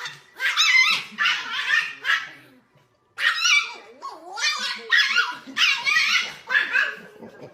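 A dog barking over and over in high-pitched yaps, with a short pause about three seconds in.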